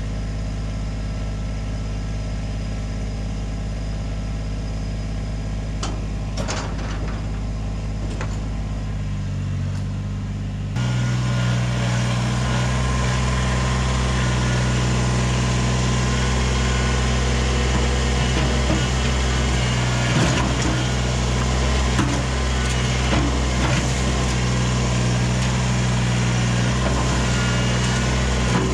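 An engine idling steadily, then, about eleven seconds in, the louder sound of a Kubota BX23S compact tractor's three-cylinder diesel running as its front loader bucket works into a rock pile, with scattered knocks and clatters of stones.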